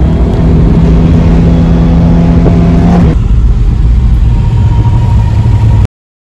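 Car engine heard from inside the cabin, first holding steady revs at speed; about three seconds in it cuts abruptly to a lower, rougher rumble at low speed.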